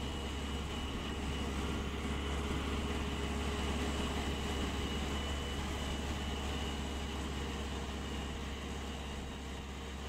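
Diesel engine of farm machinery running steadily under a low drone, with a faint steady high whine on top; it grows a little louder toward the middle and eases off near the end.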